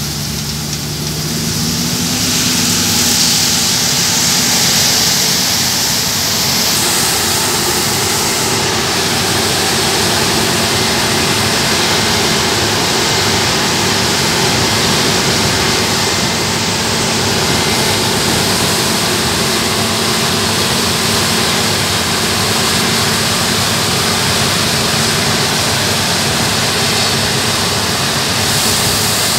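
Claas combine harvester and tractor running side by side as the combine unloads grain through its auger into a trailer: a steady engine drone with a dense hiss over it, growing louder about two seconds in.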